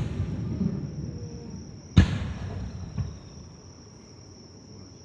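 Fireworks shells bursting in the sky. The rumbling echo of a burst fades over the first second or so, a loud bang about two seconds in rolls away in a long echo, and a smaller crack follows a second later.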